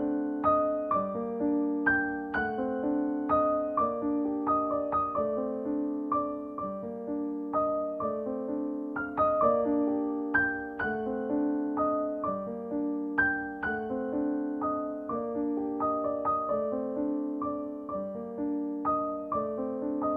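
Background solo piano music: a steady flow of single struck notes that ring and fade, mostly in the middle register.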